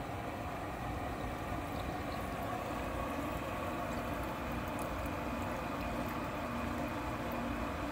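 Sweet tea poured in a steady stream from a plastic gallon jug into a glass mason jar full of ice, over a steady mechanical hum.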